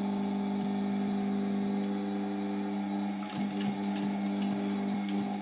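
Sewing machine running steadily, stitching a rabbit-fur pelt. From about three seconds in, rapid even clicks of the needle come through over the motor's hum.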